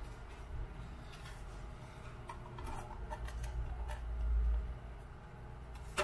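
Light scraping and clicking as the metal bottom plate of a Dunlop Cry Baby wah pedal is handled and lined up on the open housing, with a dull low thud about four seconds in and a sharp click near the end.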